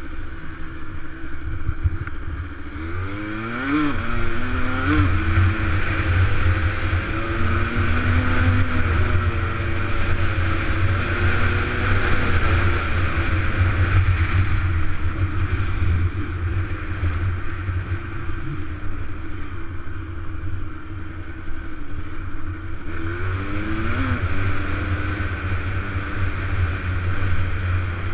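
Dirt bike engine running as it is ridden along a gravel road, heard from a helmet-mounted camera with wind noise. The engine pitch swings up and down about four seconds in and again near the end.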